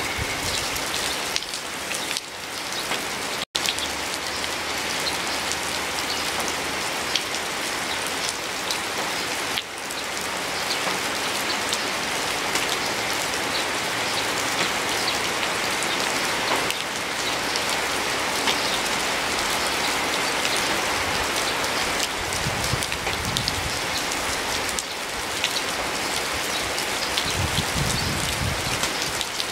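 Steady rain falling, a dense even hiss dotted with many small drop ticks. The sound breaks off for an instant about three and a half seconds in.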